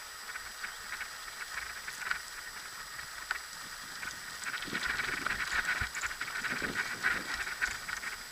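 Dogs' paws and a kickbike scooter's wheels on the trail as a team of dogs pulls it: a fast, irregular patter of small ticks and crunches that gets busier and louder about halfway through.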